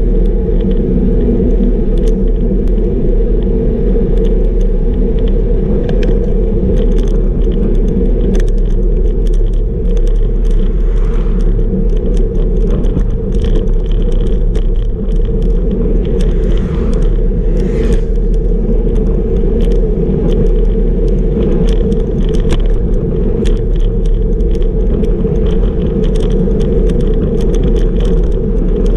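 Steady wind buffeting on a bike-mounted camera's microphone while cycling at speed, mixed with tyre noise on asphalt. Scattered small clicks and rattles from the bicycle and its mount.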